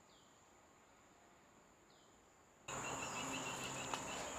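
Tropical forest insects droning steadily at a high pitch, with a short falling call about every two seconds. About two and a half seconds in, the sound jumps suddenly louder and a rapid chirring trill joins the drone.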